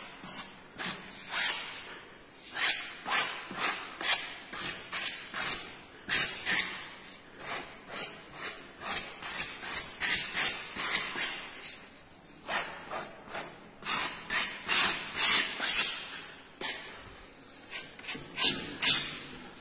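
Paint being rubbed and smeared across a painting board by hand: a run of short, dry rubbing strokes, one to three a second, with a couple of brief pauses.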